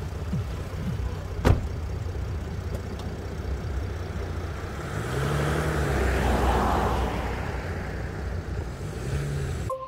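Steady low outdoor rumble with a motor vehicle passing by, swelling and then fading between about five and eight seconds in, its engine note rising and falling. A single sharp click about a second and a half in.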